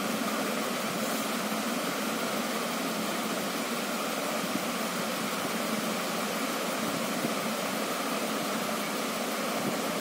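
Steady room background noise: an even hiss with a faint steady hum and no distinct events.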